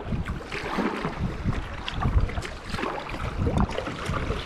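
Wind buffeting an action camera's microphone while a kayak paddle dips in and out of choppy sea water with irregular splashes.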